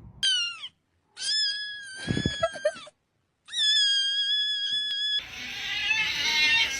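A cat meowing three times: a short falling meow, then two long high meows. About five seconds in, a louder, harsher, noisier cry or scream-like sound takes over.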